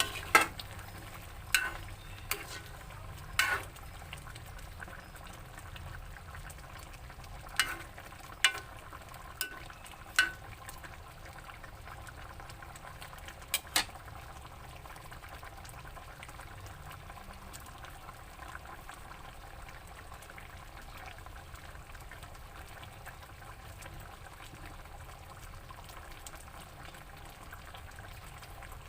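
Chicken simmering in a tomato-paste sauce in a pan, a steady bubbling, with about eight sharp clinks against the pan in the first half.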